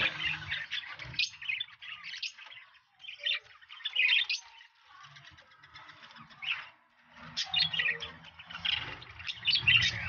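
Budgerigars chirping in repeated raspy bursts, with a low rumbling rustle under the chirps in the second half.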